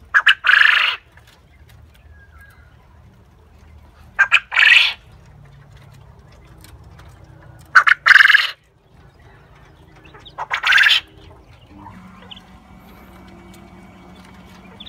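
Male black coturnix quail crowing four times, about every three and a half seconds. Each crow is two quick short notes followed by a longer note.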